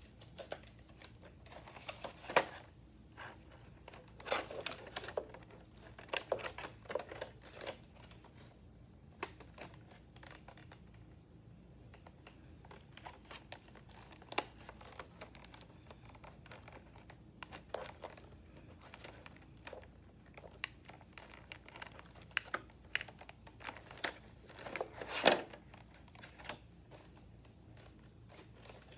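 Stiff clear plastic packaging being handled and pried open: irregular crinkling, clicks and rustles, with a few louder crackles about two seconds in, around fourteen seconds and near twenty-five seconds.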